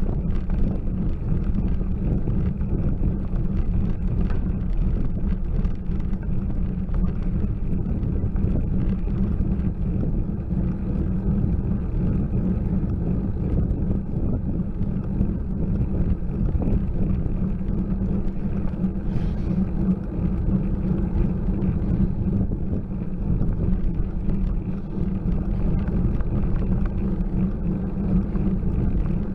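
Steady low rumble of wind buffeting and road vibration on a bicycle-mounted camera's microphone as the bike climbs a steep lane slowly.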